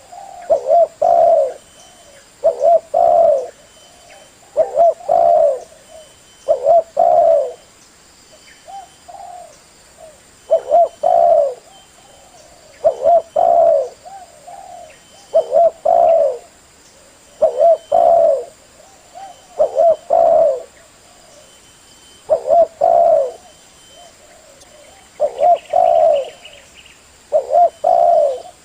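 Spotted dove (tekukur) cooing over and over, each phrase a quick group of two or three low, rounded coos, repeating about every two seconds. This is the male's song used as a lure call to draw other tekukur.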